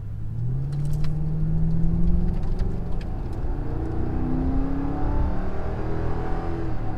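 A Mercury Grand Marquis 4.6-litre V8, fitted with AP Xlerator mufflers and Walker dual exhaust pipes, pulling hard under throttle, heard inside the cabin with the windows up. The exhaust note climbs in pitch as the car accelerates, over steady road rumble. The note is subtle but clearly not stock.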